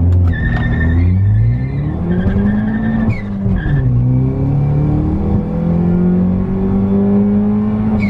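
Stage-3 tuned Peugeot 208 GT's turbocharged 1.6 four-cylinder accelerating hard from a standstill, heard from inside the cabin. The revs climb through first gear, fall at a gear change about three seconds in, when the turbo flutters, then climb again. A steady high whine runs over the first gear.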